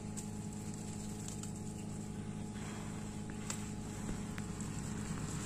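Steady low hum of an engine running, with a few faint clicks.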